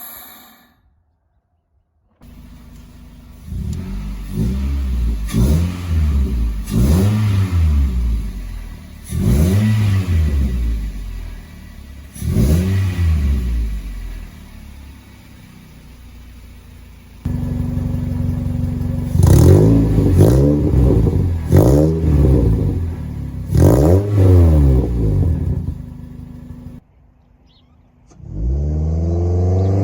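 2003 Toyota Corolla's 1ZZ-FE inline-four, fitted with a short ram intake and a cat-deleted exhaust with resonators, idling and blipped repeatedly: about ten quick revs that rise and fall, in two sets separated by a steady idle. Near the end, after a brief break, the engine climbs in one long rising rev.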